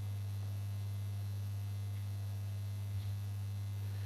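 Steady low electrical mains hum from the sound system, a constant drone with a fainter overtone above it.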